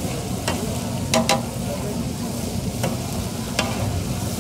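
Diced bull liver sizzling on a large flat steel griddle while a metal spatula stirs it. The spatula strikes and scrapes the griddle about five times, and a sharp double clack about a second in is the loudest.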